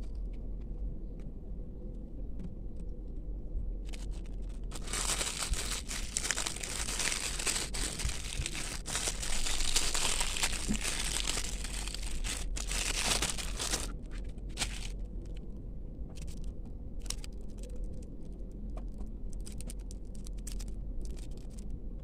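Packaging crinkling and tearing as a mystery blind bag is opened, with a dense stretch of crinkling in the middle and lighter rustles and clicks before and after.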